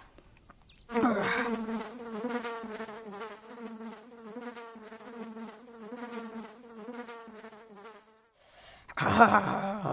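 A fly buzzing with a wavering pitch, starting about a second in and dying away about a second and a half before the end. Near the end a much louder, voice-like burst breaks in.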